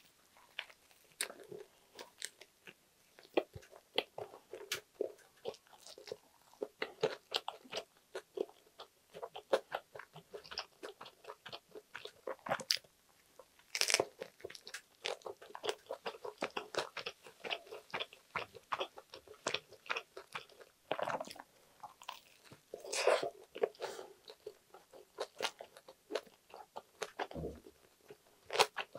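Biting and chewing a buttered-toast sandwich of spam, egg and lettuce: a continuous run of crisp crunches from the toasted bread and crunchy lettuce, with louder bites about halfway through and again a little past two thirds of the way.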